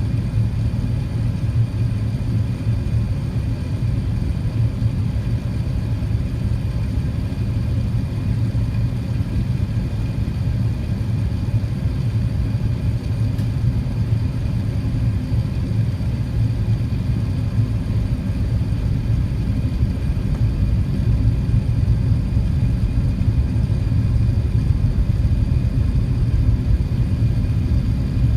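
Steady low rumble of an Airbus A380 heard from inside the cabin: the engines and airflow, with a faint steady whine above. It grows a little louder about two-thirds of the way through.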